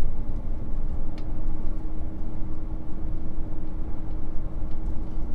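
Road and engine noise inside a moving RV's cab: a steady low rumble with a faint steady hum.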